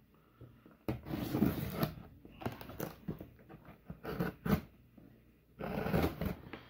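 A paper shipping mailer being handled and torn open by hand: rustling and tearing in bursts, with a couple of short sharp clicks about four seconds in.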